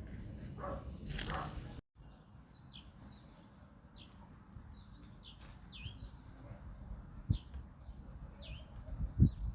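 Small bird chirping over and over, short high chirps about every half second to a second, over a faint outdoor background. A louder noisy stretch cuts off abruptly about two seconds in, and there are two low thumps near the end, the second the loudest.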